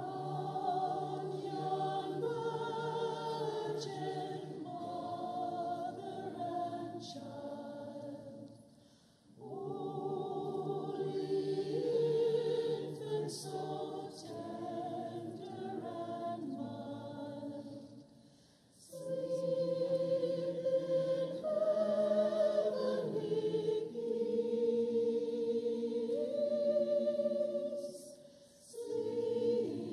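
Church choir singing a Christmas carol in long sustained phrases, with short breaks between phrases about every nine seconds.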